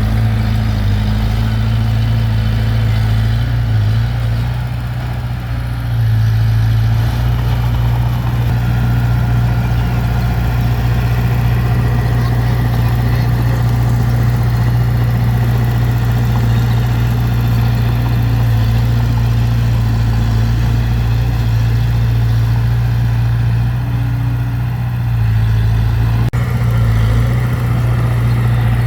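Heavy diesel engine of earthmoving machinery running steadily with a deep drone, dipping briefly in level twice, about five and about twenty-five seconds in.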